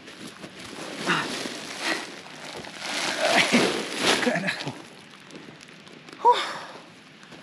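A man breathing hard and sighing under a heavy load, with rustling from his bags and the grass as he walks. A short, loud voiced exhalation comes about six seconds in.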